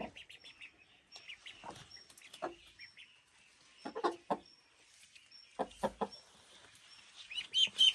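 A hen clucking, a few short calls about four and six seconds in, with faint high peeping from call ducklings throughout.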